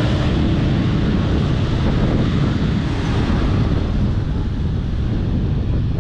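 Passenger train passing directly beneath an overpass: a steady, loud rumble and rush from the cars and wheels, with wind buffeting the microphone.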